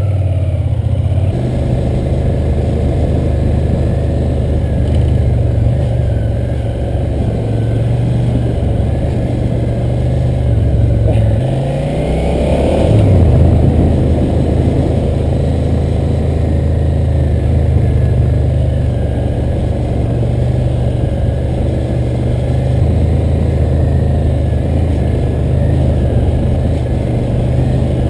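Motorcycle engine running steadily as the bike is ridden at low speed, with a brief dip and rise in engine pitch about twelve seconds in.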